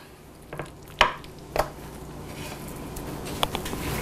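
A few soft knocks and taps from chicken pieces and ceramic dishes being handled during flour dredging, the clearest about a second and a second and a half in, over a faint low hum.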